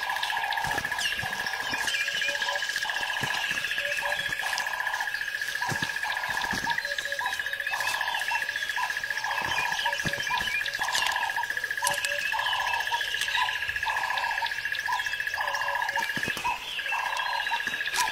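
Rainforest ambience: a steady high buzzing trill, a lower call repeating roughly twice a second, and scattered bird chirps.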